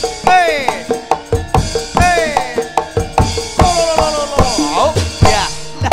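Live Javanese gamelan-style stage music: a steady run of kendang drum strokes, with a pitched line that slides downward again and again, about every one and a half seconds.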